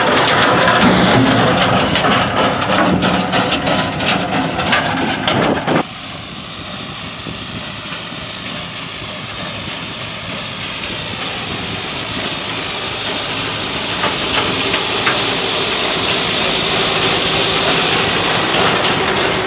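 Tractor-drawn stone-picking machine at work, with a dense clattering rattle close by. After a sudden cut, the Tümosan tractor's diesel engine runs steadily and grows slowly louder as it draws near.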